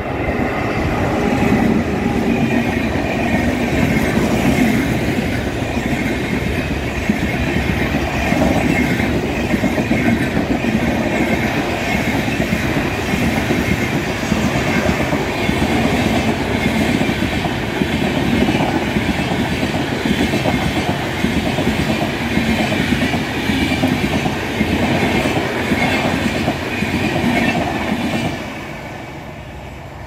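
Passenger train of LHB coaches hauled by a WAP7 electric locomotive running past at speed, wheels clattering over the rail joints in a loud, steady rumble. The noise drops sharply about two seconds before the end as the last coach goes by.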